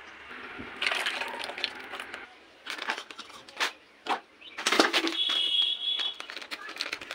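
A plastic packet crinkling and rustling as it is handled, with sharp knocks and clicks of bowls and containers being moved about. A brief high steady tone sounds about five seconds in.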